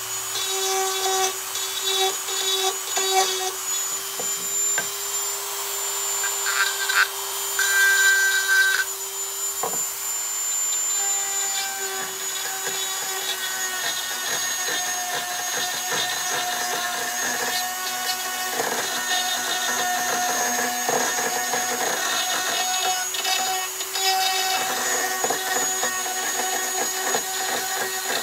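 Dremel rotary tool with a grinder tip running at speed, grinding old built-up glue out of a deep crevice in a wooden drawer. A steady high motor whine with scratchy grinding over it that changes as the tip bears on the wood.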